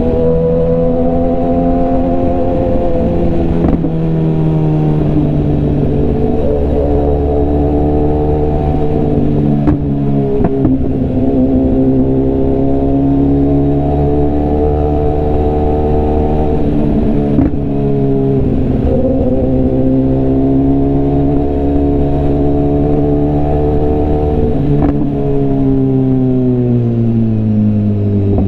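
BMW S1000RR's inline-four engine and exhaust under way, its note climbing and dropping several times as the bike pulls through traffic.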